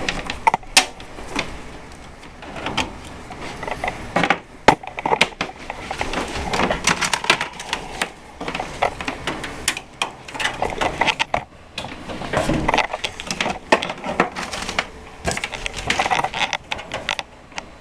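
Irregular clicks, knocks and rattles of cables and plugs being handled and pushed into the ports of a desktop computer.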